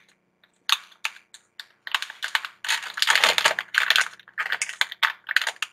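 Crinkly packaging being unwrapped by hand from a makeup sponge: irregular crackling and crinkling in short bursts with brief pauses, busiest midway through.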